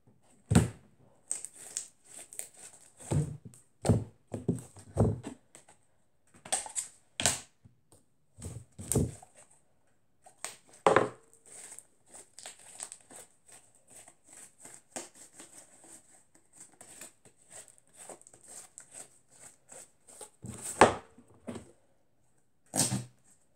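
Pink slime squished and pressed by hand into a small plastic flip container, giving irregular sticky squelches and small pops, some of them fart-like, with a louder squelch near the end.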